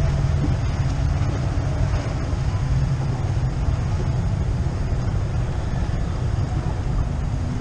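Wind buffeting the microphone on an open boat: a steady, rough low rumble with no pauses.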